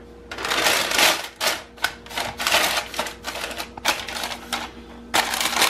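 Parchment paper crinkling in quick irregular bursts as a ball of bread dough is pressed down into a parchment-lined glass bowl, starting about a third of a second in.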